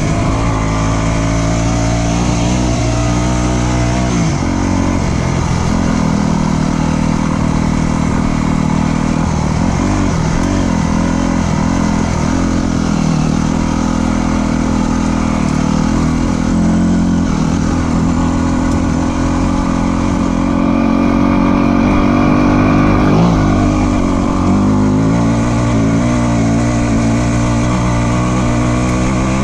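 Dirt bike engine running under way, its pitch rising and falling as the throttle opens and closes.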